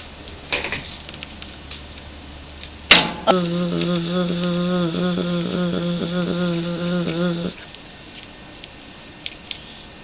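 A fly buzzing close up for about four seconds, a steady buzz that wavers and then cuts off suddenly, just after a sharp click.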